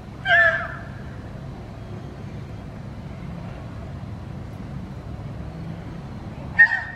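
Horses squealing during a nose-to-nose greeting: a short, high squeal about half a second in and another near the end, over a steady low background rumble.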